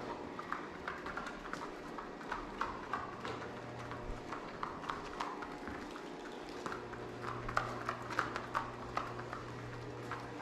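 A dog's claws clicking on a hard floor as it moves about searching: light, irregular taps several times a second, over a steady low hum.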